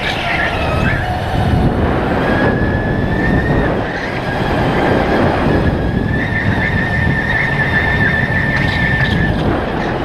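Onboard sound of a Sodi RTX electric go-kart driven at speed: a constant rumble with a high, steady whine that comes in for a few seconds at a time, twice.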